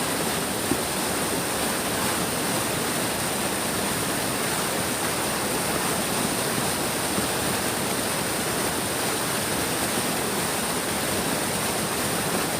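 A big stream's water flowing, a steady, even rush of running water with no breaks.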